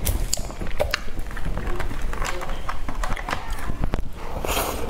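Close-miked eating of cream-topped sponge cake: chewing and mouth sounds with irregular sharp clicks of a metal fork against the plate.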